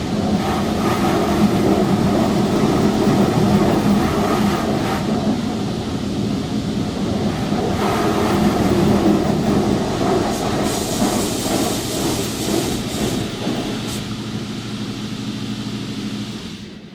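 Automatic car wash running: a loud, steady mix of machine noise and a low hum, which drops away sharply near the end.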